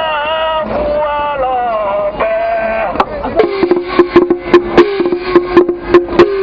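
A man's voice chanting in a sung line, then from about three seconds in a small brass hand gong struck with a wooden stick, about four quick strikes a second, each ringing on the same steady pitch.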